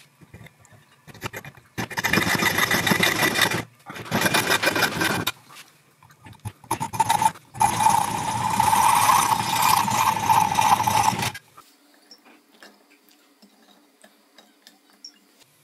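Hacksaw cutting through thin copper pipe held in a vise, played back at four times speed, so the strokes run together into a fast, even rhythm. It comes in four spells with short breaks, the last the longest, then falls away to faint handling for the last few seconds.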